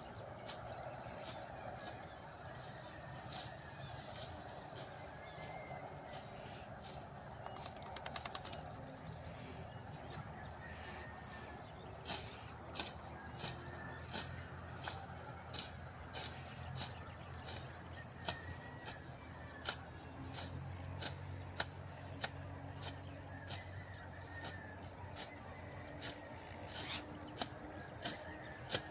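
Sickle (karet) strokes slicing through grass stems: short, sharp, irregular cuts that come about one to two a second in the second half. Behind them, a steady high chirring of insects.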